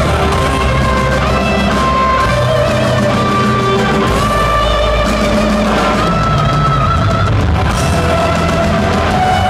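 Live power metal band playing an instrumental passage, with guitar melody lines held over bass and drums, as heard by an audience recording at a concert.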